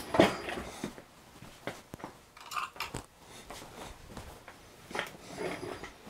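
Irregular small clicks, taps and scrapes of parts and tools being handled on a workbench.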